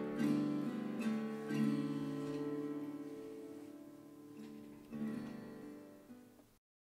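Background music on acoustic guitar: a few plucked chords that ring and die away, then cut off suddenly near the end.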